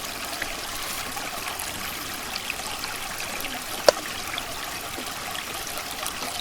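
Stream water flowing with a steady trickle, and a single sharp click a little under four seconds in.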